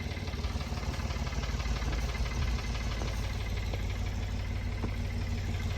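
Tractor engine idling steadily, with a fast, even low pulsing.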